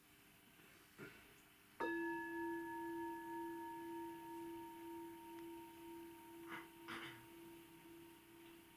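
A bowl-shaped meditation bell: a light tap about a second in, then one full strike that rings on as a steady, slowly pulsing tone with fainter higher overtones, fading gently.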